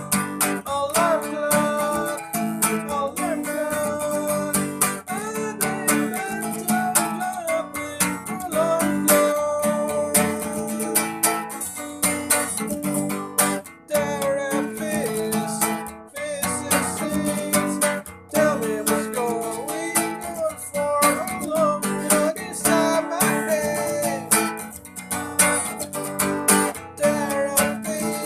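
Acoustic guitar strummed in a steady chord rhythm through an instrumental passage of a song, with a wavering melody line that bends in pitch over it.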